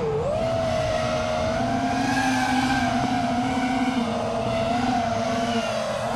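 Five-inch FPV quadcopter's four RCinPower Smoox 2306.5 2580kv brushless motors spinning Gemfan 5.1-inch props, whining as the quad carves around. The pitch dips at first, holds fairly steady with small wobbles, then rises sharply near the end as the throttle is punched.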